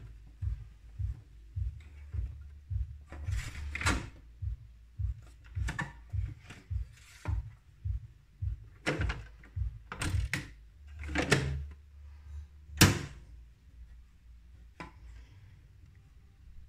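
Plastic clicks, knocks and thunks from parts of a Saeco Intelia espresso machine being worked by hand, the drip tray and grounds drawer pushed in and out and the steam wand moved, to trip its sensors. The sharpest thunk comes near the end, and a low hum pulses about two to three times a second underneath.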